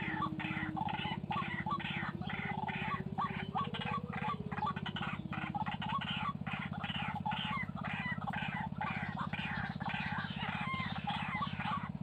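White-breasted waterhens (ruak-ruak) calling: harsh, croaking calls repeated rapidly, several a second and without a break, over a steady low hum.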